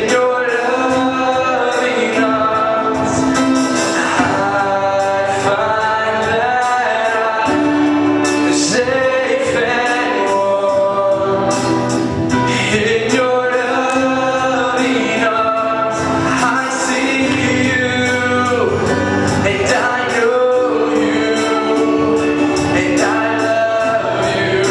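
Live gospel worship music: a man sings lead into a microphone, with other singers joining and instrumental accompaniment, over a steady beat.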